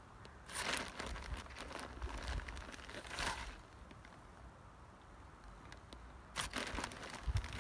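Short bouts of crinkling and crunching, about half a second in, around two to three seconds in, and again near the end, from a gloved hand working fish, blood and bone fertiliser into dry soil around seedlings beside a plastic fertiliser bag.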